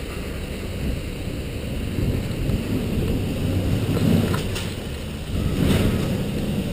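Snowboard sliding and carving over groomed snow, with wind rushing over the pole-mounted action camera's microphone. The rush swells louder about five and a half seconds in.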